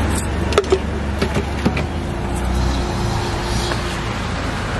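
Street ambience dominated by the steady low drone of nearby road traffic, with a faint steady hum and a few sharp clicks and knocks scattered through it, most of them in the first two seconds.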